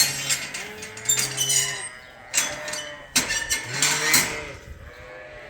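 Sheep bleating: a run of long, overlapping calls from several animals, with a couple of sharp knocks among them.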